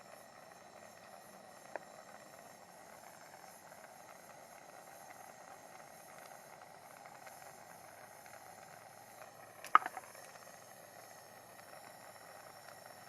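Faint steady hiss, with a light tick about two seconds in and a sharper knock about ten seconds in, the loudest sound.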